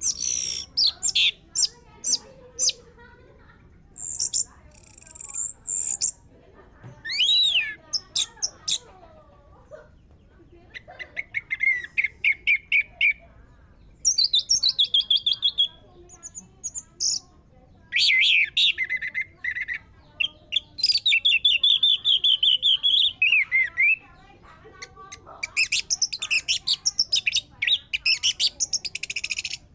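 Orange-headed thrush singing a loud, varied song. It is made of short phrases of whistled glides and fast rattling trills, separated by brief pauses.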